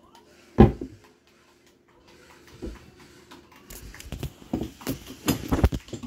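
A cabinet door shutting with a loud thud about half a second in, followed a few seconds later by a run of irregular knocks and bumps from things being handled.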